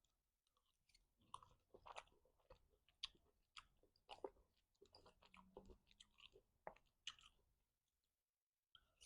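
Faint close-up chewing of food: irregular wet mouth clicks and smacks, a few every second, dying away near the end.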